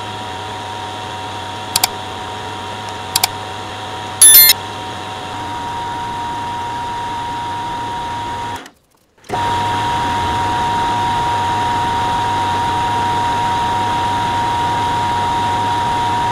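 Hafco AL336 geared-head metal lathe running with a steady hum and whine while facing the top of a bolt head. Two small clicks and then a short, bright ringing chime come in the first few seconds, the chime being the loudest sound. The lathe sound cuts out for a moment near the middle and resumes slightly louder.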